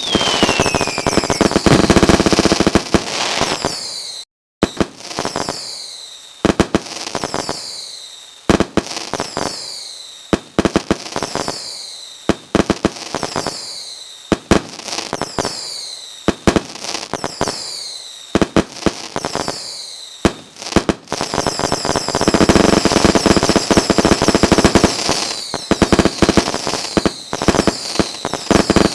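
Fireworks going off: rapid sharp bangs and crackling, with falling whistles about once a second, and a denser crackling barrage in the last several seconds.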